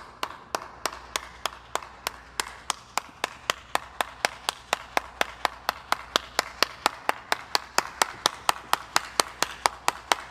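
A steady train of sharp claps or clicks, about four a second, evenly spaced and growing slightly louder.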